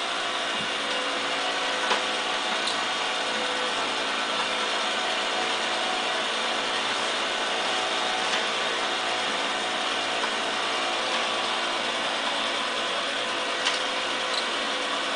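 Battery-powered toy fishing game running: its small motor and plastic gears turning the pond with a steady, loud mechanical whir and clatter, with an occasional light click.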